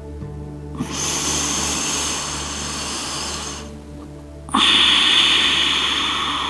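Two long, audible breaths from the woman holding a yoga stretch, the second louder and starting suddenly about four and a half seconds in, over soft, steady background music.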